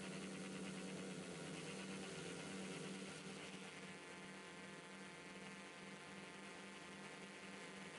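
DJI S900 hexacopter's motors and propellers humming steadily, heard from the camera it carries. A little louder for the first three seconds while it climbs, then easing a little.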